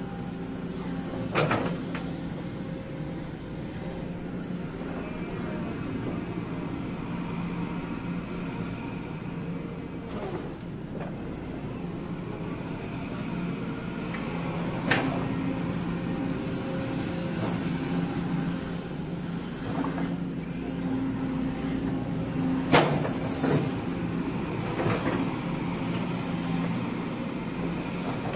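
Kobelco SK125SR-3 hydraulic excavator working: the diesel engine runs steadily under hydraulic load as the boom and bucket are worked and the upper structure swings. A few sharp knocks break in, the loudest about two thirds of the way through.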